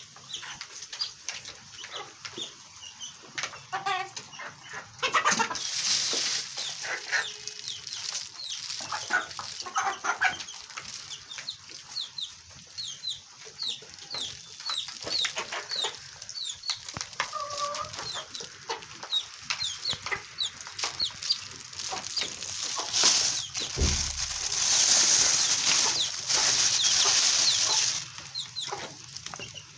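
Chickens clucking in a poultry yard, with many short high chirps running through it. About three-quarters of the way in, a loud rushing noise lasts several seconds, then stops suddenly.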